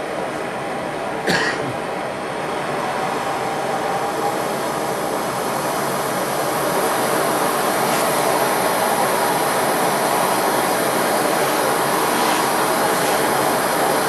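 Bernzomatic BZ8250HT hand torch firing into a small furnace: the flame's steady rushing noise, which grows louder over the first several seconds. A single sharp knock about a second in.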